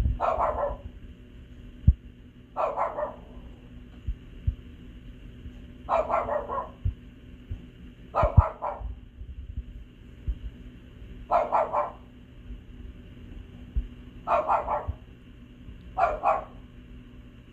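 A dog barking in seven short bouts, each a second or less, coming every two to three seconds.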